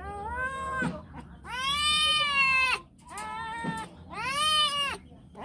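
A domestic cat meowing repeatedly, about four drawn-out meows with the long second one the loudest: a cat's demand to be played with.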